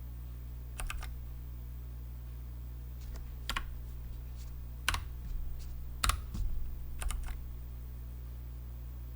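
Nuphy Air60 keyboard with Gateron red mechanical switches: about a dozen scattered key presses, single and in quick pairs, a second or so apart, over a steady low hum.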